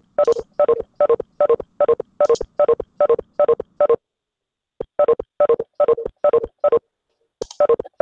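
Video-conference exit tone repeating as participants leave a Webex meeting: a rapid run of short, identical beeps, about two and a half a second, that pauses for about a second partway through and then resumes.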